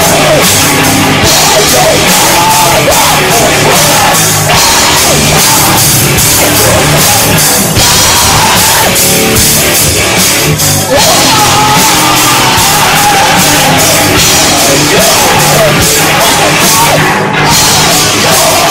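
Punk-metal band playing live and loud: electric guitar and drum kit driving hard.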